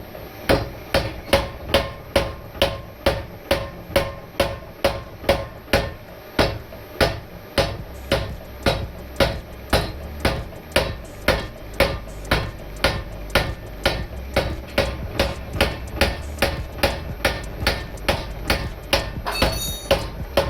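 Homebuilt 100 lb trip-style power hammer running at about three blows a second, its ram pounding a hot 20 mm square steel bar as the bar is drawn down. Each blow rings briefly.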